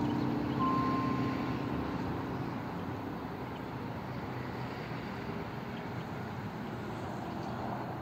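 Church bells dying away: one last bell note sounds about half a second in and the ringing fades out over the next few seconds. Then only a steady outdoor background rumble remains.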